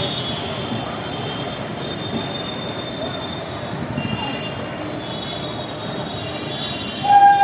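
A train running through a town: a steady rumble with thin high squeals from the wheels coming and going. A loud horn sounds about seven seconds in.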